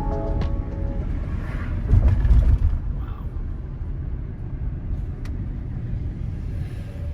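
Van on the move: a steady low rumble of engine and road noise, swelling briefly about two seconds in. The last held notes of music die away in the first half second.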